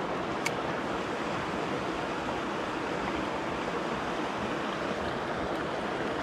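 Steady rush of river water flowing over rocks, with one short click about half a second in.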